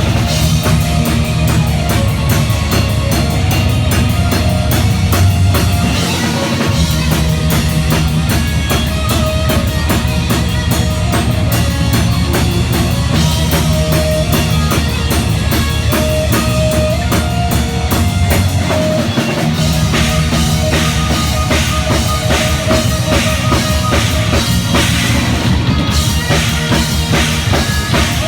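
Live rock band playing: guitar and bass over a drum kit driven by rapid, dense bass-drum and cymbal strokes.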